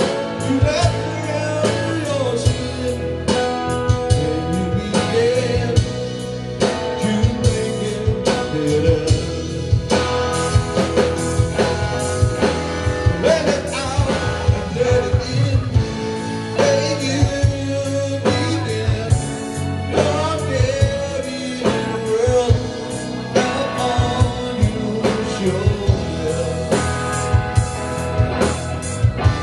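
Live band playing a song: a man singing lead over electric guitar, bass guitar and a drum kit keeping a steady beat.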